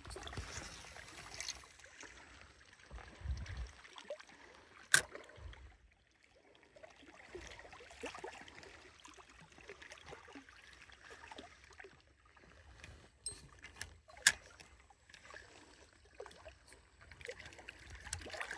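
Faint water and outdoor background with a low rumble, broken by a few sharp clicks, the loudest about five seconds in and two more late in the stretch.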